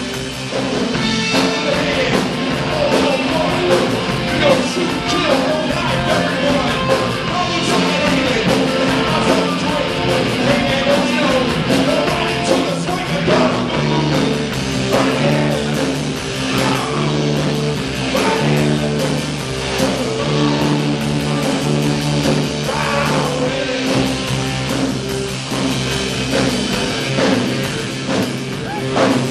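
Live rock band playing a song: electric guitars and a drum kit, loud and steady.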